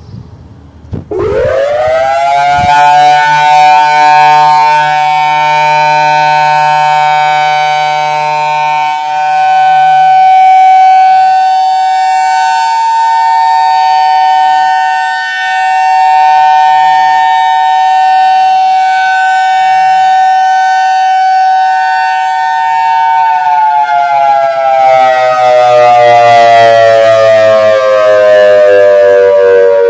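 Whelen WPS-4004 electronic outdoor warning siren sounding a dual-tone test, very loud. About a second in it winds up quickly to two steady pitches a little apart and holds them. Near the end it slowly winds down in pitch.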